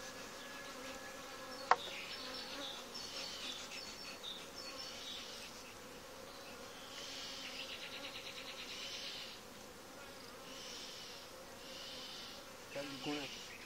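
Honeybee colony humming steadily from an open hive; the bees are irritated, stirred up by the smoke and handling. A single sharp click comes about two seconds in.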